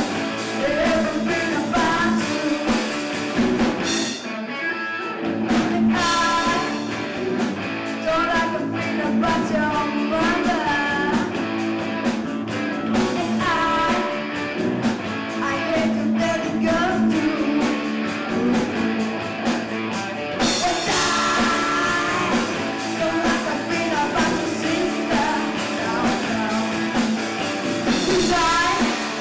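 A live rock band playing: a young singer's lead vocal over electric guitars, bass guitar and a Tama drum kit. The band thins out briefly about four seconds in and comes back brighter and fuller about two-thirds of the way through.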